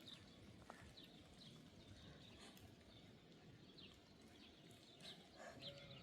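Near silence: a faint outdoor background with scattered short, high chirps from small birds. A livestock bleat begins near the end.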